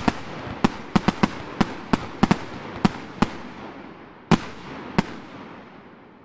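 A 100-shot, 30 mm fireworks cake (Color Coco Tree with colour tails) firing its last shots. There are rapid, uneven sharp bangs for about three seconds, then two last shots spaced further apart, over a hiss that fades away as the cake burns out.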